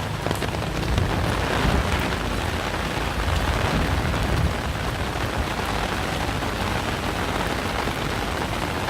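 Heavy tropical downpour, rain pouring steadily with a dense hiss and a low rumble underneath.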